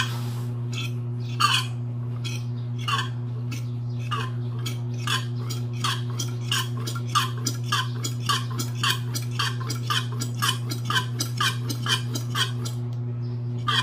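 A long series of short metallic clinks, about two a second and then quicker, about three a second, stopping shortly before the end, as the scooter's front fork tube is worked upside down to drain its remaining fork oil. A steady low hum runs underneath.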